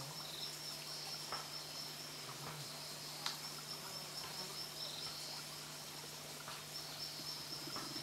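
Forest insects trilling steadily, a continuous high-pitched buzz, over a low steady hum, with one sharp click about three seconds in.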